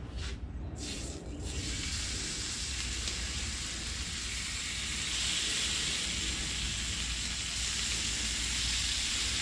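Raw bacon strips sizzling as they are laid on the preheated non-stick plate of a Chefman electric griddle, the sizzle growing louder about five seconds in as more strips go down. A couple of short rustles near the start.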